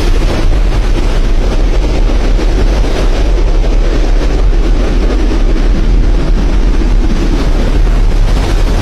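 Strong storm wind buffeting the microphone: a loud, steady, low rumble of wind noise.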